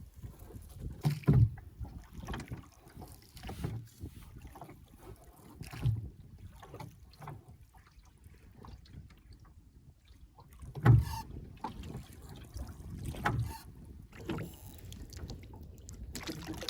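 A small old boat being rowed through water: low knocks and splashes of the strokes come every two seconds or so, the loudest about a second in and again about eleven seconds in.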